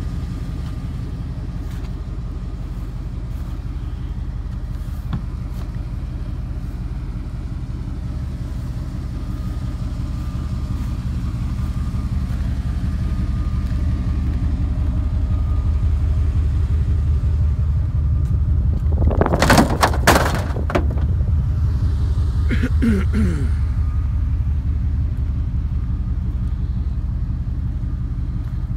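A motor vehicle's engine runs with a steady low rumble that swells louder through the middle and eases off again. A short clatter of sharp knocks about two-thirds of the way through is the loudest moment.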